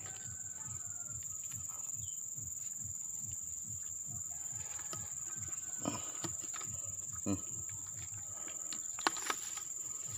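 Steady, high-pitched trilling of field insects such as crickets. A few sharp clicks and knocks about six, seven and nine seconds in come from the eel and gloved hands being handled at a plastic container.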